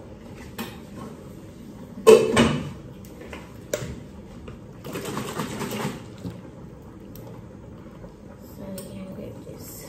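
A metal spoon clicking and scraping in the neck of a barbecue sauce bottle, working loose sauce that has partly frozen to ice. A brief vocal sound comes about two seconds in, and a short rush of noise about five seconds in.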